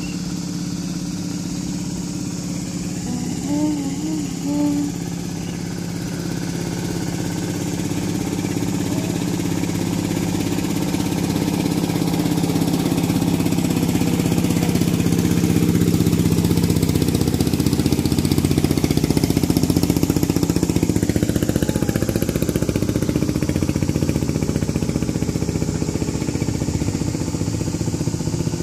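Thai e-taen farm truck's single-cylinder diesel engine running steadily, growing louder as the truck approaches. It is loudest about two-thirds of the way through, then eases off slightly.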